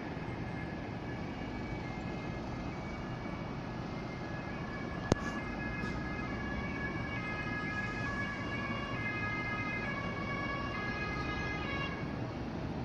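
Emergency vehicle's two-tone siren, alternating between two pitches, from about five seconds in until near the end, over steady road and engine noise heard from inside a moving car. A single sharp click about five seconds in.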